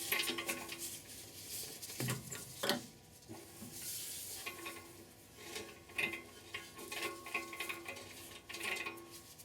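Irregular metal clinks and scraping from hand tools working in the engine bay as the new upstream oxygen sensor is fitted.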